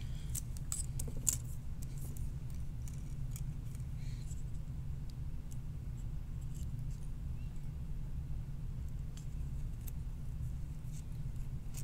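Small light clicks and ticks of resistor wire leads being handled and pushed through a printed circuit board, a few sharp ones in the first second or so and fainter ones scattered after, over a steady low hum.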